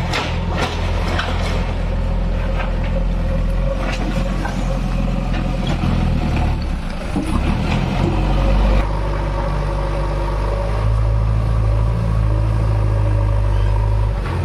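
JCB 3DX backhoe loader's diesel engine running steadily under work, with scattered clanks and knocks in the first half. The engine note dips about six seconds in, then settles into a heavier, steady drone.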